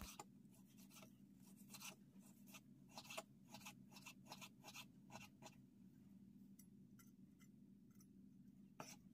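Faint taps and scrapes of a chef's knife slicing raw beef on a bamboo cutting board, irregular strokes about two a second that thin out near the end.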